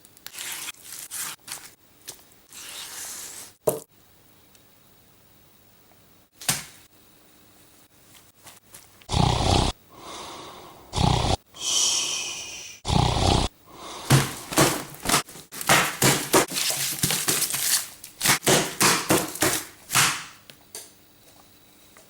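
A rapid, irregular string of thuds, knocks and crashes, with a few heavy blows about halfway through and a dense run of quick strikes near the end.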